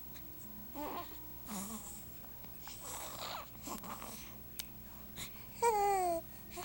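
Hiccups: several short separate jerks with breathy puffs between them. Near the end comes one louder, higher cry that falls in pitch.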